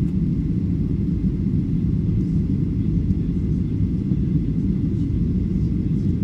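Steady low rumble of a Boeing 737 airliner's jet engines and rushing air, heard from inside the passenger cabin in flight.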